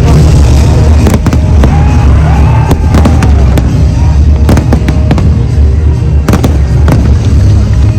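Fireworks going off in a rapid, irregular series of sharp bangs and cracks, heard over loud music with a heavy bass.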